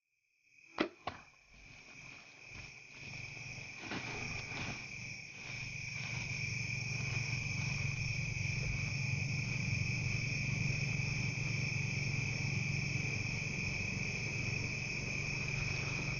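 Insects, crickets or similar, chirping steadily in one high continuous tone over a low steady hum, the sound building up over the first few seconds. Two sharp clicks come about a second in.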